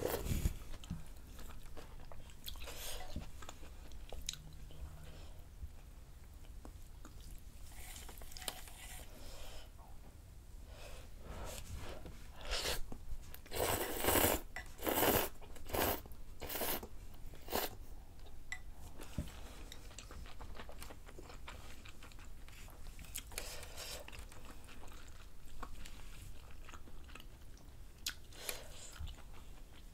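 Close-up eating of dumpling rice cake soup: soft chewing and small clicks of wooden chopsticks and spoon. In the middle comes a run of about six loud slurps as noodles are sucked off the spoon.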